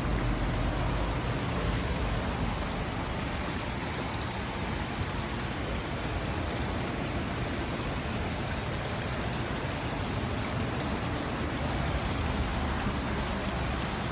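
Water spraying and splashing inside a koi pond rotary drum filter, its cleaning shower washing the drum screen; a steady hiss like heavy rain.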